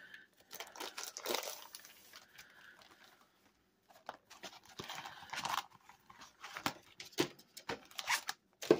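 Clear plastic sleeve and rolled diamond-painting canvas rustling and crinkling as they are pulled apart and unrolled, in irregular handling noises with sharp crackles, broken by a brief near-silent pause a little before halfway.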